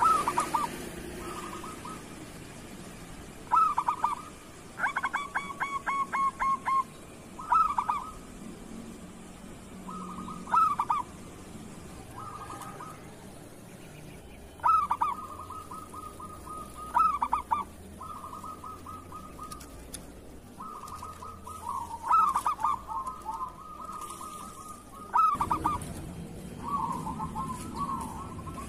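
Zebra doves cooing: repeated phrases of quick, staccato cooing notes, each phrase a second or two long, with short pauses between them.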